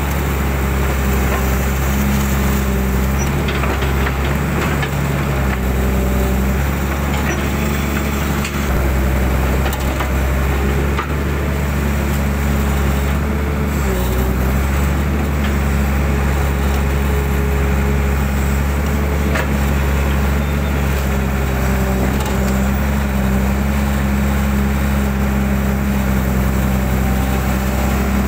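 Hydraulic excavator's diesel engine running steadily under load, with a higher hydraulic whine that wavers slightly in pitch as the boom and bucket dig mud out of a ditch, heard from the operator's cab.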